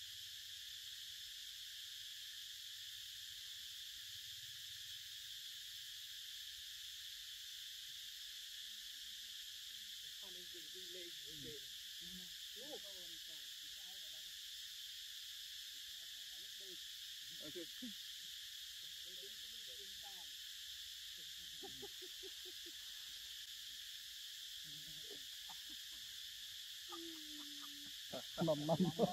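Forest insects droning steadily in a high band. Faint scattered low calls come through the middle, and a man's voice breaks in near the end.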